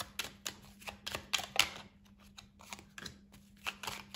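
A deck of oracle cards being shuffled by hand in two stacks: a run of light, irregular clicks and flicks of card against card, quieter for about a second in the middle. A faint steady low hum lies underneath.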